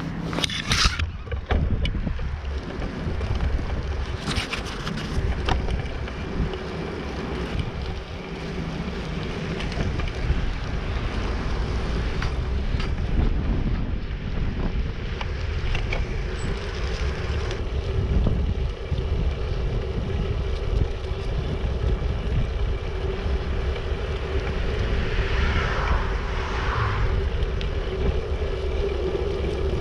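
Wind buffeting the microphone over the steady rumble of bicycle tyres rolling along a snowy track, with a few sharp clicks near the start.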